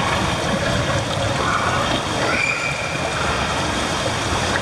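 Steady rushing, echoing ambience of an indoor swimming pool hall, with the noise of water running.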